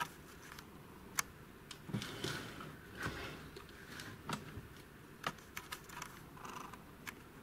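Scattered faint clicks and light rustling at irregular intervals: handling noise as the camera is moved in close over a circuit board.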